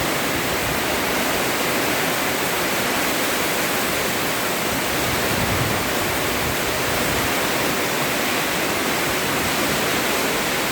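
Torrential rain falling in a dense, steady hiss without let-up.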